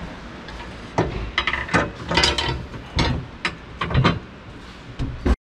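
Metal rear brace bar knocking and clattering against the car's trunk body as it is positioned and fitted, in a string of separate sharp knocks that stops abruptly near the end.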